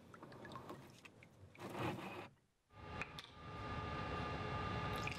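Scraping and rubbing as a metal sensor pole is hauled up through its brackets on a wooden platform, loudest about two seconds in. After a sudden break, lab equipment starts a steady hum with a thin high tone that swells and then holds.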